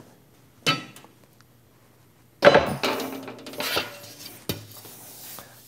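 Clanking of 20-gauge sheet steel against an electromagnetic sheet metal brake as the freshly hemmed sheet is taken out. A light knock comes first. About two and a half seconds in there is a loud metallic clank that rings briefly, followed by scraping and rattling of the sheet, and a click near the end.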